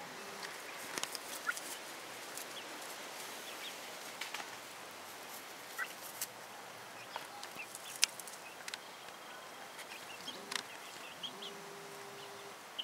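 Young Light Sussex chicken foraging, giving short soft peeps and clucks scattered through, with sharp ticks in between, the loudest about eight seconds in. A steady insect buzz comes in for about two seconds near the end.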